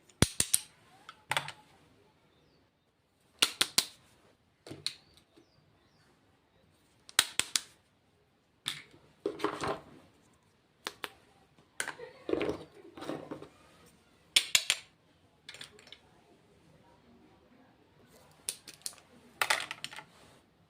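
Makeup packaging being handled: short clusters of sharp clicks and taps every second or two, as cases and lids are opened, set down and tapped.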